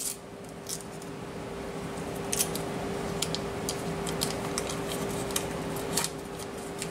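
Scattered small crackles and clicks of a paper butter wrapper being peeled off pieces of cold butter, over a steady background hum.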